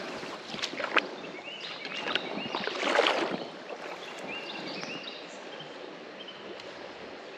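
Shallow creek water sloshing around a wading angler's legs, with one louder splashing swell about three seconds in. Short high chirping calls of birds come and go over it.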